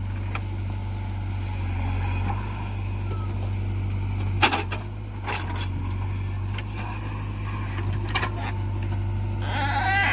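Diesel earthmoving machinery running steadily at a low drone, with a few sharp metallic knocks, the loudest about four and a half seconds in. A wavering bleat-like animal call sounds near the end.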